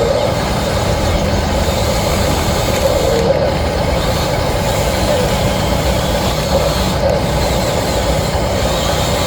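Small electric motor and gear drive of an RC construction model running steadily: a continuous mechanical drone with a wavering whine.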